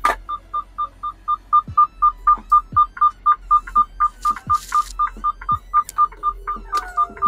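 Truck's electronic warning beeper sounding rapidly, about four beeps a second at one steady pitch, typical of a tractor put in reverse to back into a parking spot. A short air hiss comes about four seconds in, and the beeping stops near the end.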